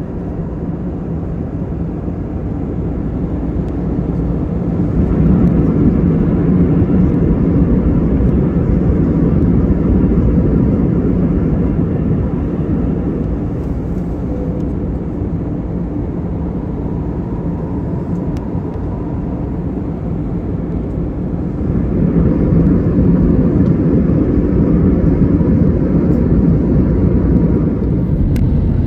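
Jet airliner engines and cabin airflow heard from inside the passenger cabin as a steady low rumble, swelling louder twice for several seconds as engine power rises and falls, typical of the aircraft taxiing before takeoff.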